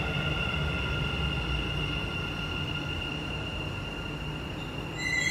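Dubai Metro Kinki Sharyo train pulling into the platform and slowing: a low rumble with a steady high whine that fades as it comes to a stop. A new high tone starts right at the end.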